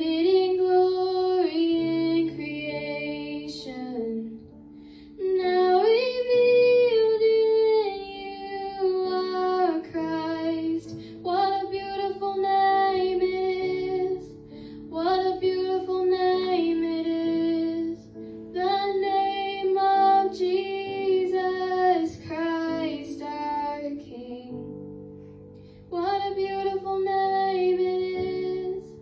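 A young woman singing a contemporary worship song solo into a handheld microphone, in phrases of a few seconds with short pauses between them. A sustained instrumental backing track carries on underneath the pauses.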